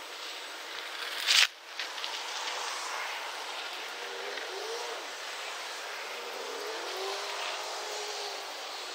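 Steady outdoor wind rush on a phone microphone set on gravel, with one short, loud gust or knock about a second and a half in. Two faint rising hums come in the second half.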